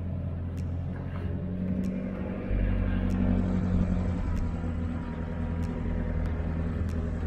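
Four-wheel drive's engine running steadily as it drives along a sandy track, with occasional light ticks. The engine note gets louder about two and a half seconds in.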